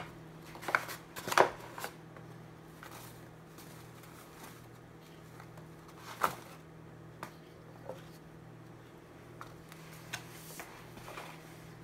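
Flour being handled and poured from a plastic measuring cup into a glass mixing bowl: soft rustling with a few light knocks of the cup, the sharpest about a second and a half in. A steady low hum runs underneath.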